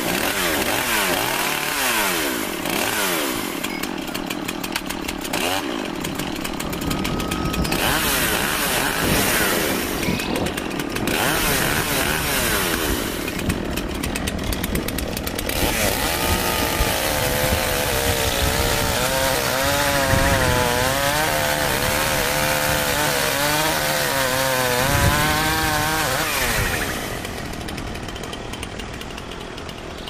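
Chainsaw running at high revs, its pitch wavering up and down through the second half, then dying away near the end.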